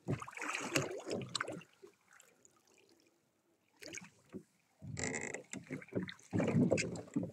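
Small rowboat being handled on the water: splashes and knocks of the oars and gear against the hull, stopping for about two seconds in the middle and picking up again near the end.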